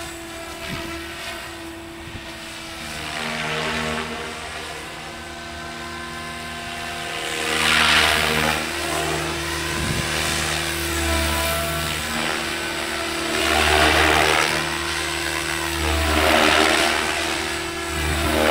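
Electric SAB Goblin 570 RC helicopter flying aerobatics: a steady motor and rotor whine, with about five loud rotor-blade swooshes that swell and fade as it swings past in the second half.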